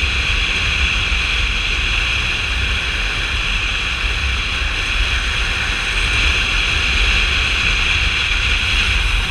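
Steady wind rush buffeting the microphone of a camera on a moving motorcycle, with the bike running underneath at a steady cruise.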